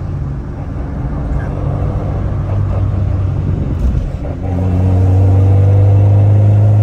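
1990 Honda Civic EF hatchback's engine and Yonaka exhaust, heard from inside the cabin while driving: a steady low drone. It dips briefly about four seconds in, then grows louder, its pitch slowly rising as the car pulls.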